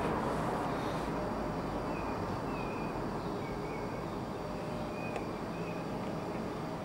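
Steady outdoor background rumble with no distinct event, joined by a few faint, short high chirps.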